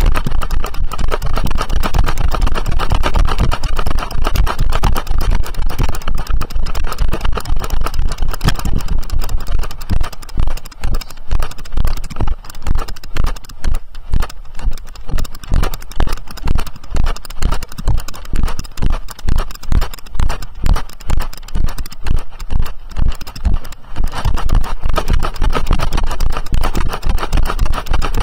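A ridden horse moving along, its hoofbeats thudding in a steady rhythm, heard through a jolting saddle-mounted camera with a heavy low rumble of handling and wind on the microphone.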